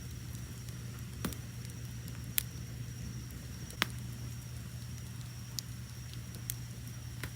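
Wood fire burning with a steady low roar and sharp crackles and pops, about six of them, the loudest nearly four seconds in. A steady high cricket chirping runs underneath.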